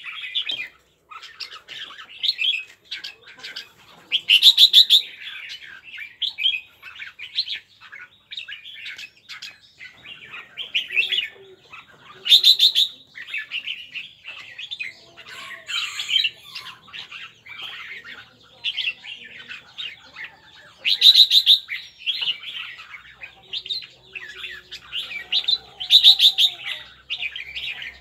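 Red-whiskered bulbul calling almost without pause: quick chirps and chattering notes, with four loud, harsh kekek bursts, the excited call given with its wing display.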